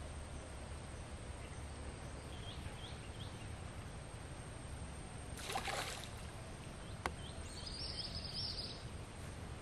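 Outdoor ambience beside a pond: a steady low rumble with faint bird chirps a couple of seconds in, a short noisy rush about halfway through, and a single sharp click about seven seconds in.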